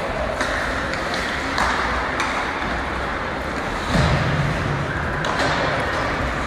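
Ice hockey play echoing in an indoor rink: sharp clicks of sticks and puck over a steady hiss of arena noise, with a louder swell about four seconds in.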